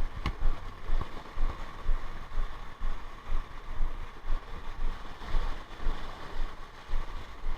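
Wind rumbling on the microphone over the wash of a rough sea, rising and falling in gusts.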